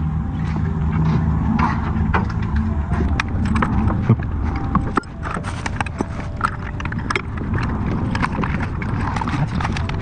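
Irregular metallic clicks and knocks of hand tools working on a truck's gearbox and drivetrain as it is refitted, over a steady low hum.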